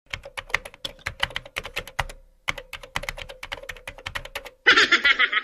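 Computer keyboard typing sound effect: quick, irregular keystroke clicks that pause briefly about two seconds in, then carry on. Near the end a short, brighter sound comes in over the clicks.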